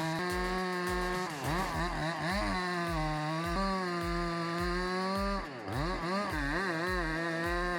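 Chainsaw running at full throttle, its pitch dipping and wobbling twice as the chain bites into the wood under load, then recovering. A steady musical beat thumps underneath.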